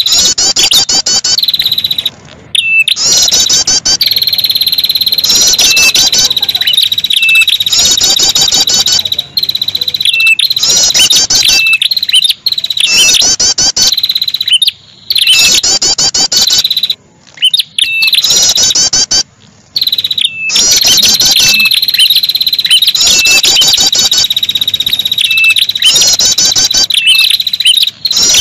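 Bird-lure recording of ashy tailorbird calls: rapid, high trilling phrases repeated again and again over a steady high-pitched tone. The loop breaks off briefly and suddenly several times.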